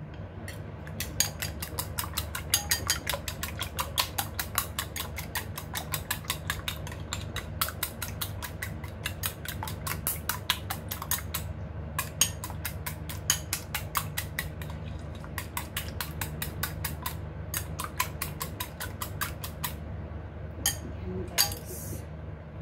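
Two raw eggs being beaten in a ceramic bowl with chopsticks: a fast run of light clicks as the sticks strike the bowl, several a second, over a steady low hum.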